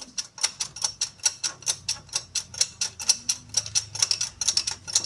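Ratchet wrench being turned, its pawl clicking evenly and quickly, about six clicks a second.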